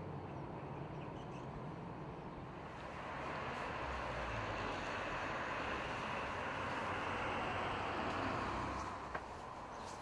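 A train running on the line, heard as a steady rushing rumble that swells a few seconds in and drops away near the end.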